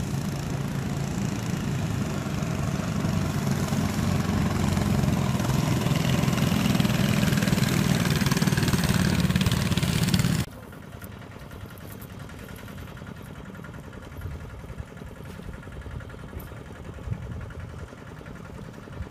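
Engine of a long, narrow river motorboat running past, growing louder as it comes close. It cuts off abruptly about ten seconds in, leaving a much quieter background.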